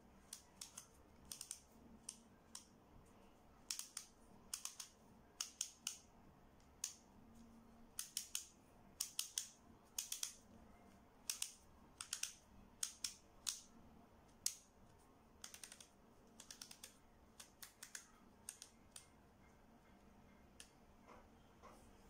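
Lettered wooden rings of a laser-cut wooden cryptex combination lock being turned by hand, clicking as they rotate from letter to letter. The clicks come singly or in short quick runs and grow sparse and fainter near the end.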